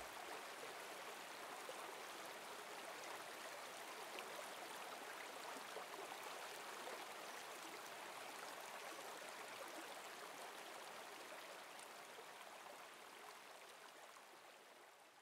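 Faint rushing of a river over rocky rapids, a steady hiss of running water that fades out near the end.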